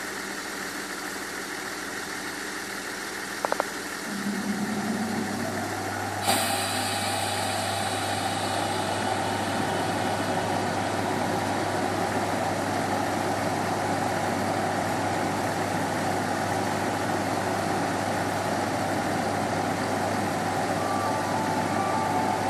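MÁV class V43 electric locomotive standing with its electrical equipment humming steadily. A short click comes about three and a half seconds in and a deeper hum joins at about four seconds. A sudden sharp burst about six seconds in is followed by a louder steady rush of running machinery.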